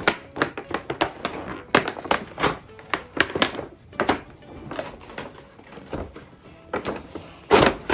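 Cardboard toy box being opened and handled: a run of irregular knocks, clicks and scrapes, over faint background music.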